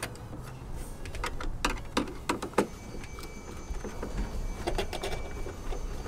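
Hands working with wiring parts, making a quick series of sharp clicks and light knocks about one to two and a half seconds in, then a few softer knocks near five seconds.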